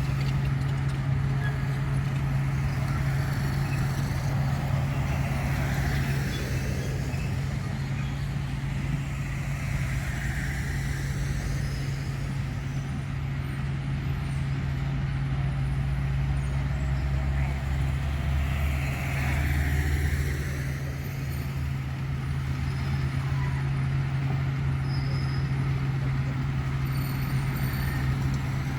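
Heavy diesel earthmoving machinery running with a steady engine drone. The engine note swells briefly at about two-thirds of the way through.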